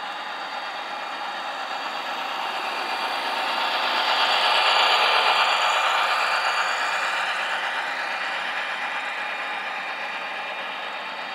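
HO scale model freight train running past on its track: a steady rolling and whirring of wheels and motor that grows louder to a peak about halfway through, then slowly fades.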